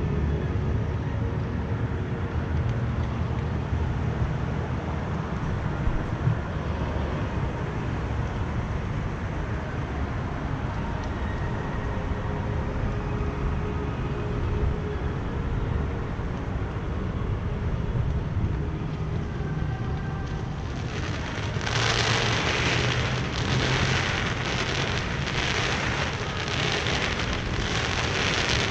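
Fireworks display: a continuous low rumble of booms, then from about three-quarters of the way in a run of crackling, hissing bursts, roughly one a second.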